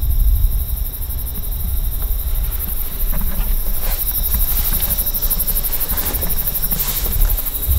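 Wind buffeting the microphone: an uneven low rumble that gets louder near the end, with a few soft scuffing steps in the middle.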